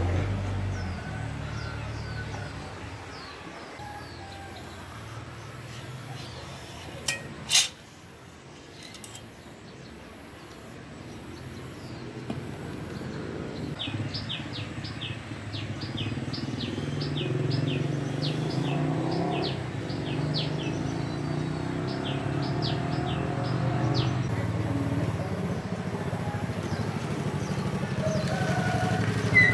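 Two sharp metal clinks about seven seconds in, over a low rumble of vehicle traffic that swells later on. Small birds chirp in quick runs through the middle.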